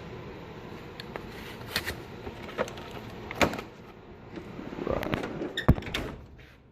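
Clicks, clinks and knocks of hand tools being handled in a steel tool chest drawer, with a louder knock near six seconds.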